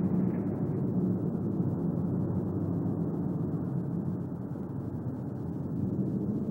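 Steady low rumble of a giant flying tower-fortress moving through the sky, an animation sound effect.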